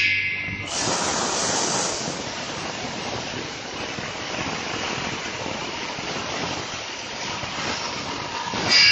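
A motor-driven circular saw blade cutting through an agathis wood log, with a steady grinding cutting noise. At the start and again near the end there is a short high-pitched whine.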